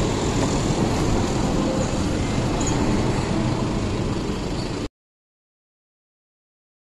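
Rusi Mojo 200cc motorcycle engine idling steadily. The sound cuts off abruptly about five seconds in, leaving silence.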